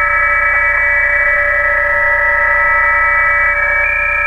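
Several PSK31 digital-mode signals on the 20 m band, heard as the receiver's audio: a stack of steady tones at different pitches over band hiss. Each tone is a separate station. One tone drops out and another comes in shortly before the end.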